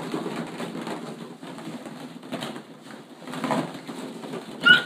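Hollow plastic ball-pit balls rustling and clicking against each other as a baby crawls and digs through them. A short high baby squeal comes near the end and is the loudest sound.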